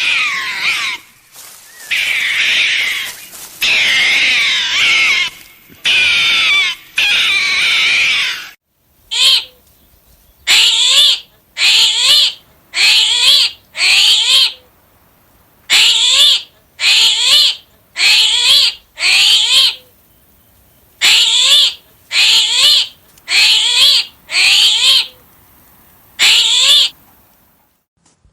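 An animal calling: long, wavering cries for the first eight seconds or so, then a run of about sixteen short calls, roughly one a second.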